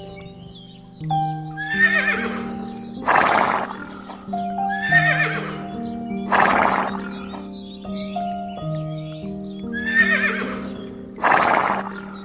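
Horse whinnying three times, each wavering call followed about a second later by a loud noisy burst, over background music with sustained notes.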